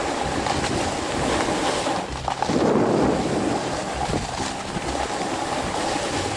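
Strong wind rushing and buffeting across the microphone of a head-mounted action camera during a snowboard run, with a louder gust for about a second roughly two and a half seconds in.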